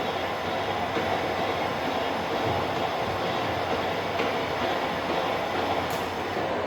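Metal-turning lathe running steadily, a continuous mechanical noise with faint steady tones.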